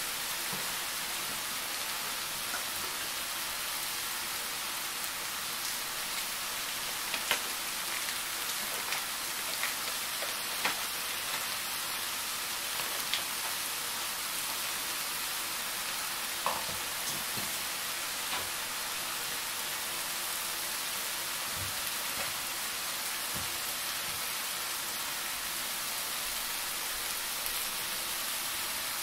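Steady sizzling hiss of food frying in a pan on the stove. Scattered light clicks and crinkles come from foil being unwrapped off a wedge of cheese and a knife working on a plastic cutting board.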